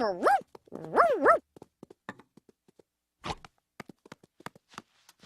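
Cartoon dog giving two short yips, each rising then falling in pitch, about a second apart, followed by a string of light ticks and taps.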